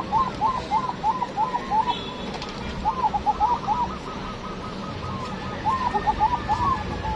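Zebra doves (perkutut) cooing in quick strings of short repeated notes, in three bouts with brief pauses between.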